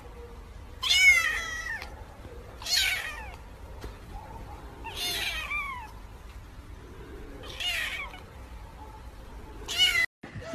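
Kitten meowing, five high meows about two seconds apart.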